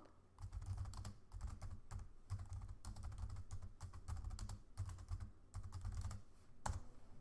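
Typing on a computer keyboard: a quick run of key clicks, then one louder keystroke near the end, the Enter key that runs the command.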